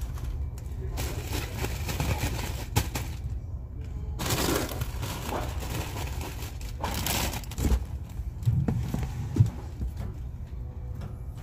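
Packaging rustling and crinkling in irregular stretches, with a few sharp knocks, as goods are handled on a store shelf, over a steady low hum.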